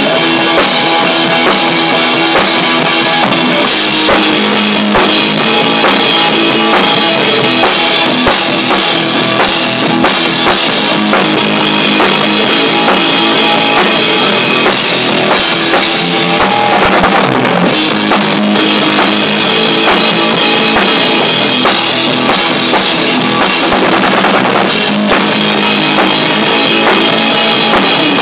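Rock band playing loud and without vocals: a drum kit with bass drum and cymbals, electric bass and electric guitar together.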